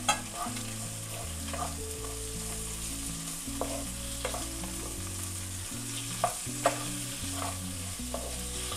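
Chopped tomatoes, shallots, garlic and dried red chillies sizzling in oil in a non-stick pan, stirred with a flat spatula. The steady sizzle is broken by short scrapes and taps of the spatula on the pan, several of them spread through the stirring.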